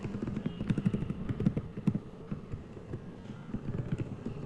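Computer keyboard being typed on: a run of irregular short key clicks and taps.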